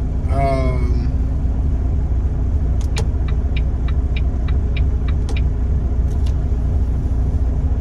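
Semi-truck's diesel engine idling steadily, heard from inside the cab. A run of light clicks comes in about three times a second from roughly three seconds in.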